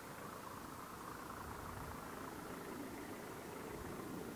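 Faint, steady hum of a distant engine, with no sharp sounds.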